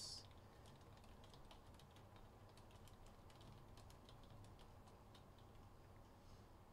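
Faint, irregular clicking of computer keyboard keys being typed on, over near silence.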